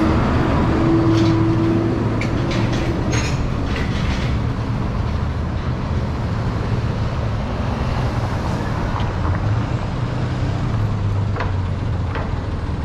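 Busy city street traffic led by a heavy vehicle's steady low engine hum. A cluster of sharp clicks and clanks comes a few seconds in.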